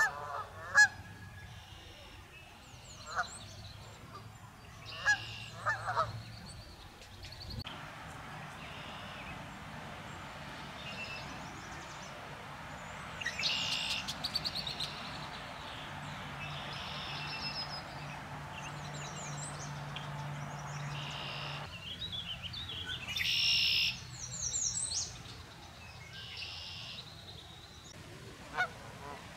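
Canada geese honking in scattered short calls and bursts, over a steady rushing background noise through the middle stretch.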